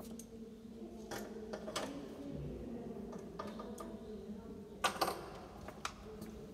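A few scattered sharp clicks and small knocks, the loudest pair about five seconds in, over a low steady hum.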